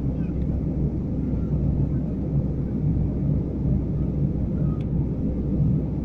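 Steady low rumble of an Airbus A319 in flight, heard from inside the passenger cabin: engine and airflow noise coming through the fuselage.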